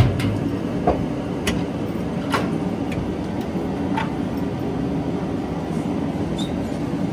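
A steady low mechanical hum, with a heavy thump at the start and a few light clicks and knocks scattered through.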